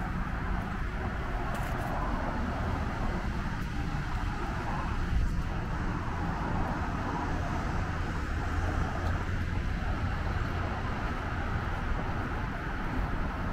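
Steady hum of distant road traffic, with a low rumble underneath.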